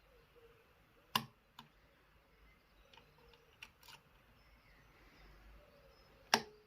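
Lever lock picking: small metallic clicks and ticks of the pick and tension wire inside a Chubb 3U114E five-lever lock. There are two sharp clicks, about a second in and near the end, with a few faint ticks between them.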